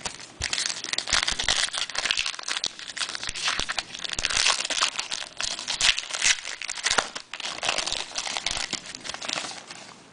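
A trading card pack's wrapper being torn open and crumpled by hand: a long run of crinkling and crackling with many sharp snaps, dying away near the end.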